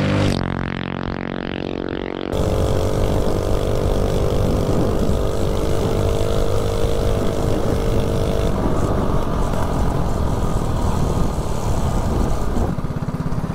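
Single-cylinder 179cc LCT snowblower engine powering a Coleman CC100X mini bike, running without a head gasket, pulling at high revs at speed with wind rush. About two seconds in the sound changes to the on-board view, and about eight and a half seconds in the revs drop as the bike slows.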